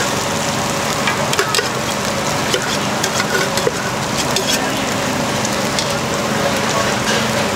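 Food frying on a hot pan or griddle at a street-food stall: a steady sizzling hiss with scattered crackles and clicks, and faint voices beneath.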